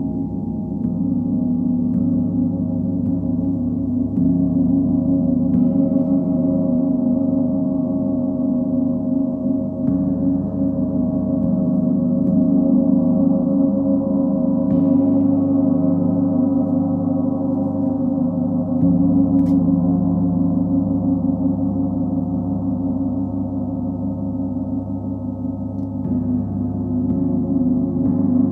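Large planetary gongs (Sun, Full Moon and Earth) played as a gong bath: a continuous, dense wash of low ringing tones that swells and ebbs, renewed by soft strikes every few seconds.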